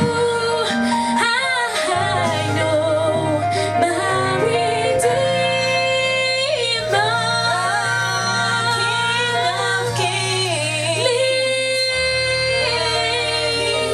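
Female voices singing a gospel worship song, with instrumental accompaniment holding low bass notes underneath.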